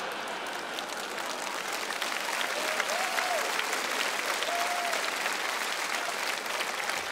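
Audience applauding steadily, with a few short calls from the crowd rising above the clapping about halfway through.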